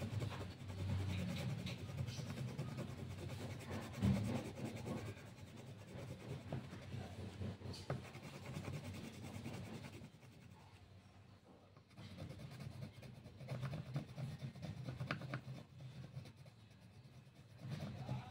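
Coloured pencil rubbing and scratching on paper in quick repeated strokes as an area is shaded in, with a short pause about ten seconds in.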